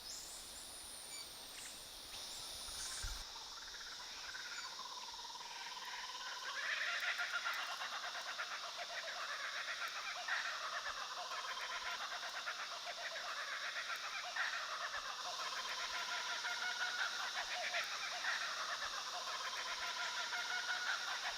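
Bush wildlife: a series of pulsed animal calls, each rising and falling over a few seconds and recurring every few seconds from about six seconds in, over a steady high hiss of insects.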